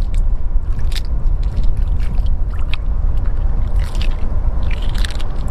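Small splashes of hands working in shallow seawater and sharp clicks of clam shells knocking together as they are gathered and rinsed, over a steady low rumble of wind on the microphone.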